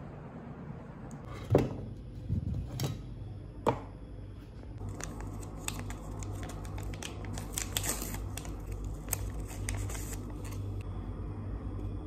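A few sharp knocks, then several seconds of rapid crinkling and tearing as a paper tea-bag sachet is torn open, over a steady low hum.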